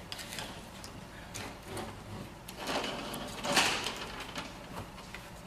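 Handling noises while painting with a watercolor brush: soft rustling and scraping with a few light clicks, and two louder swishes about three and three and a half seconds in.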